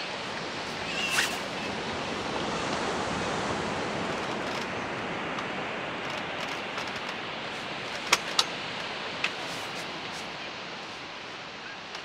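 Waves washing onto a beach: a steady hiss that swells a few seconds in and slowly fades, with three short sharp clicks about eight to nine seconds in.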